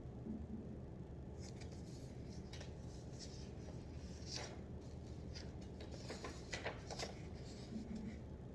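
Sheets of paper being handled and shuffled, a scattering of faint crisp rustles and small taps over a low steady hum.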